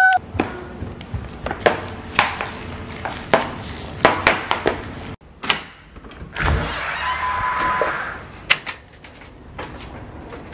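Sharp knocks and footsteps from a handheld camera being carried along, then a house's front door opening, with door thunks and a short rush of noise around the middle.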